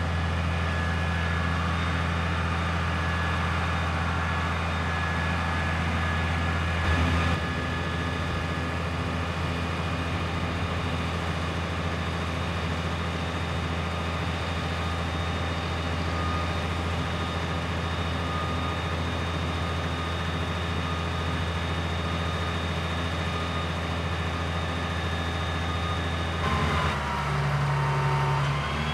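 Scania G 82 M aerial ladder truck's diesel engine running steadily, with a thin whine above it while the ladder's hydraulics work. Near the end the sound shifts and a whine falls in pitch as the ladder moves.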